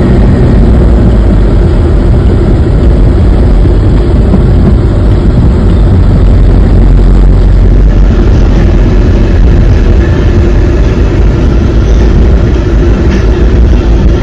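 Talbot Express motorhome on the move: steady, loud engine and road noise.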